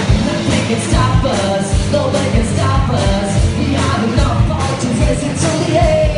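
Rock band playing live: a singer over full amplified band music, with drums keeping a steady beat.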